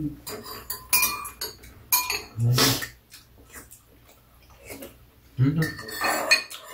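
Metal spoons and chopsticks clinking and scraping against ceramic bowls during a meal, with sharp ringing taps about one and two seconds in.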